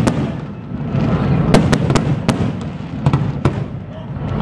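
Aerial fireworks bursting: a series of sharp bangs, several in quick succession at times, over a continuous low rumble.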